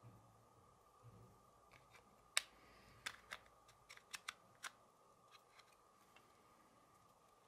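Small plastic clicks from a camera lens and its caps being handled: one sharp click about two and a half seconds in, then five or so quicker clicks over the next two seconds, and a few faint ones after.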